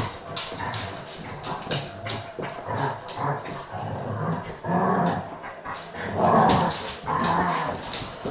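A German Shepherd and a Jack Russell puppy play-fighting in a tug-of-war over a cushion: growls and short barks, loudest a little past halfway, over a steady patter of scuffling clicks.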